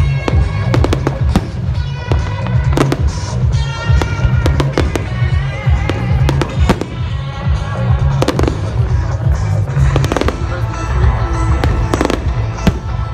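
Aerial fireworks display: shells bursting in frequent sharp bangs, irregularly spaced, over loud music with a heavy low rumble.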